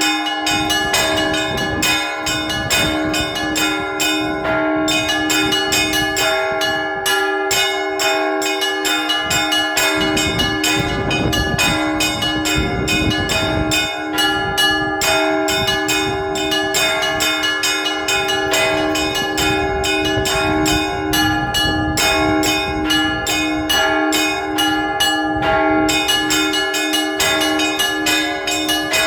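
Orthodox church bells rung by hand in a continuous peal: quick, dense strikes on the small high bells over the lasting ring of the larger bells.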